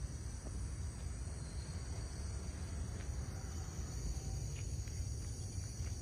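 Quiet steady ambience: a high, even insect buzz over a low rumble, with a few faint ticks.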